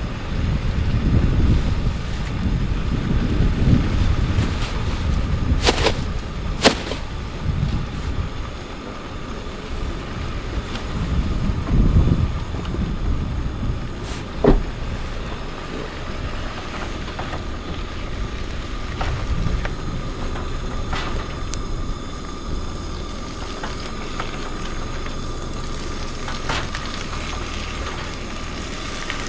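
Wind buffeting the microphone in uneven gusts, heaviest in the first half. A few sharp clicks or knocks come about six, seven and fourteen seconds in, over a faint steady hum.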